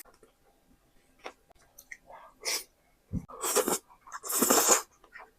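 Close-miked eating sounds: soft mouth clicks at first, then several loud wet chewing and mouthing bursts in the second half, the last the loudest, with a short low thump just after the middle.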